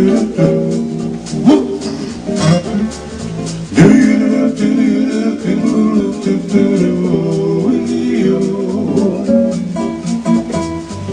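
Instrumental music on an electronic keyboard with a plucked, guitar-like voice, chords struck with sharp attacks.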